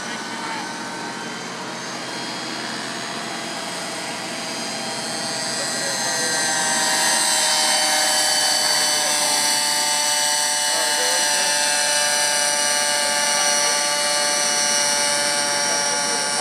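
Radio-controlled helicopter in flight: a continuous whine of rotor and drivetrain made of several steady tones. It grows louder about six seconds in as the helicopter comes in low, then holds.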